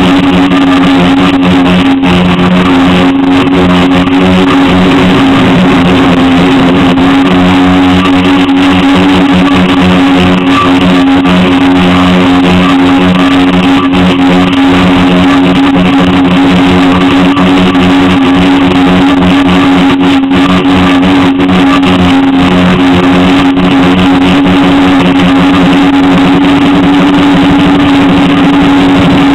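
Multirotor drone's electric motors and propellers running, heard from a camera mounted on the frame: a loud, steady, buzzing hum with no change in pitch.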